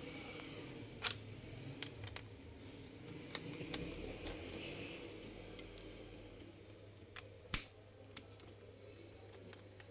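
Scattered light clicks and taps of a small screwdriver working the screws of a Dell Latitude E6420's plastic bottom cover, with the case being handled; the loudest is a pair of sharper clicks late on.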